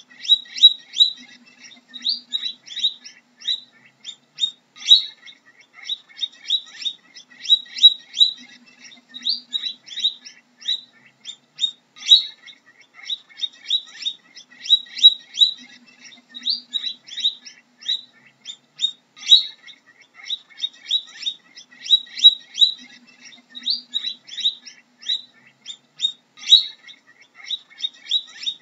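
Guinea pig squeaking: a steady stream of short, high-pitched squeaks in quick bursts, about one burst a second.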